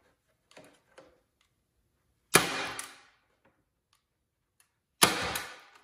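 Hand-operated staple gun firing twice, about two and a half seconds apart, stapling rubber padding in place. Each shot is a sharp snap with a quieter click just after it, and faint clicks come before the first shot.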